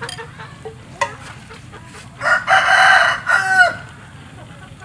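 A rooster crowing once, loudly, starting about two seconds in and ending on a falling note. A couple of light clicks come before it.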